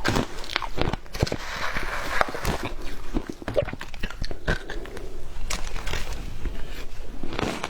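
A person biting and chewing frozen matcha ice, with many crisp crunches and cracks in quick, irregular succession.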